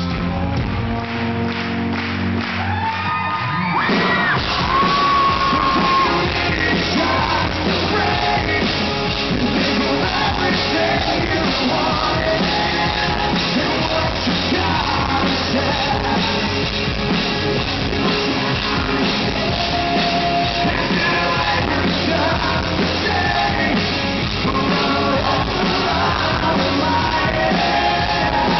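Live rock band with electric guitars, drums and a lead singer. After a sparser, quieter opening, the full band comes in about four seconds in and the singing continues over it, with the echo of a large hall.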